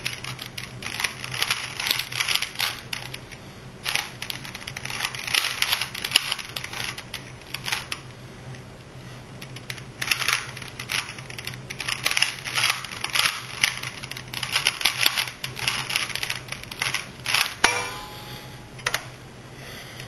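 Rapid small clicks in bursts of a second or two with short pauses between, over a steady low hum.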